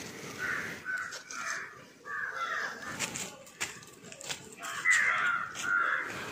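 Crows cawing repeatedly, loudest about five seconds in, with a few short sharp clicks and cracks in between.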